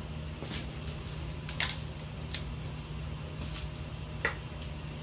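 Quiet garage room tone: a steady low hum with a few light, scattered clicks and taps.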